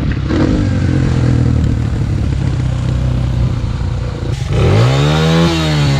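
Dirt bike engine running steadily while riding a dirt trail. About four and a half seconds in, it revs once, the pitch climbing and then falling back.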